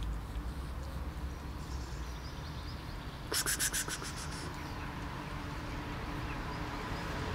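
Outdoor background of a steady low rumble with faint short high chirps, broken about three seconds in by a quick rattle of six or seven sharp clicks lasting under a second.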